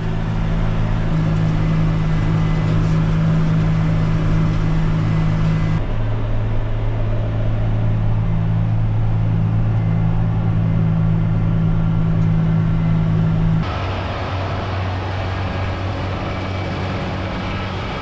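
Tractor engine and PTO-driven New Holland H7450 disc mower-conditioner running steadily under load while mowing triticale, a steady low hum heard inside the tractor cab. About thirteen and a half seconds in it turns quieter, heard from outside beside the mower.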